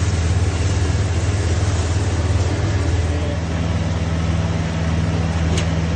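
A steady low mechanical hum, like a motor running, under an even noisy wash.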